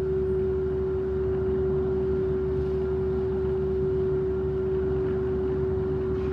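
Steady machinery hum aboard a ferry: one constant tone over a deep rumble, unchanging throughout.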